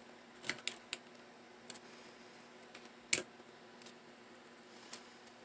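Scattered light clicks and taps from fingers handling satin ribbon petals while gluing them onto a ribbon rose, with one sharper click a little past the middle.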